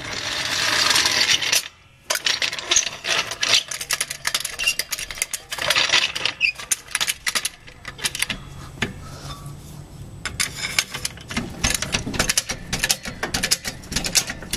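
A rushing noise for about a second and a half, then, after a short break, a steel floor jack being positioned and worked under the car's oil pan: a dense, irregular run of metallic clicks and clatter.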